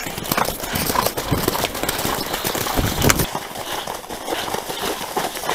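Hoofbeats of a ridden horse cantering over wet, muddy grass, heard from the saddle, with a steady rush of noise and a low rumble about three seconds in.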